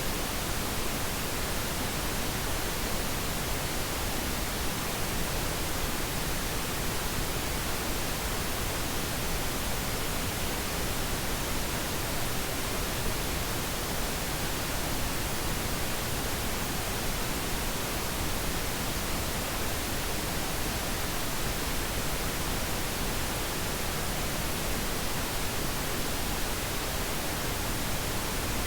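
Pink noise: a steady, even hiss spread across all frequencies, unchanging throughout, as used as a sleep aid.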